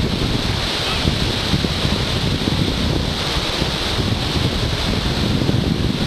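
Surf washing onto a sandy beach, with wind buffeting the microphone in a steady low rumble.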